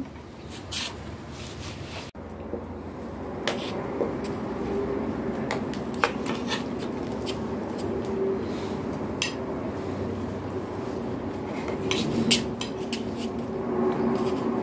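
Spoons and forks clinking and scraping on plates as several people eat, a scattering of sharp clinks over a steady low background.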